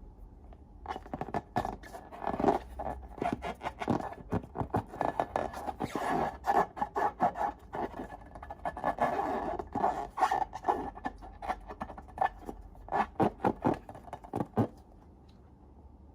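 Slime being mixed and scraped: a dense run of crackling, scraping strokes that starts about a second in and stops near the end.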